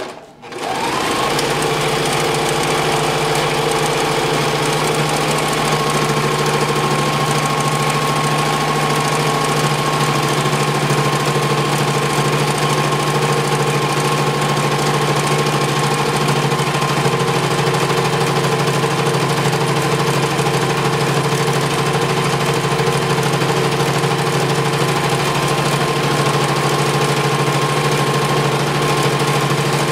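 Electric domestic sewing machine stitching a seam through bandana fabric: after a brief stop it starts up about half a second in and then runs without pause, a steady, even motor hum.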